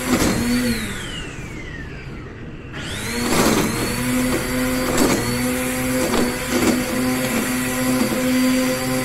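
Black & Decker GrassHog 800 W electric string trimmer running with a steady motor whine. About a second in it is let off and its pitch falls as it winds down, then about three seconds in it speeds back up. Short crackles follow as the spinning line cuts into the grass.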